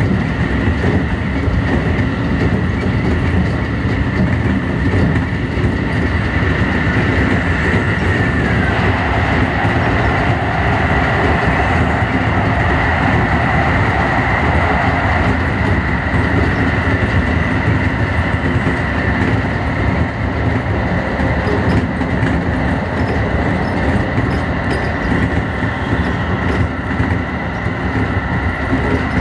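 Keio 8000 series electric multiple unit running along the line, a steady rumble of wheels on rail with a high tone held over it. A lower tone comes in about nine seconds in and fades out after about seven seconds.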